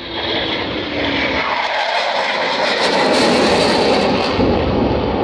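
Jet aircraft engine noise that swells about a second in and stays loud as the jet flies by in a display pass, with a deep rumble joining near the end.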